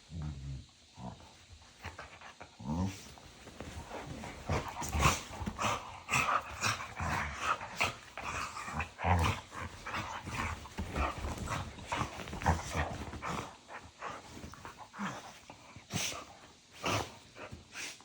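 Two small dogs play-fighting nose-to-nose: rapid, irregular growls and short yaps with snapping clicks of teeth, busiest in the middle.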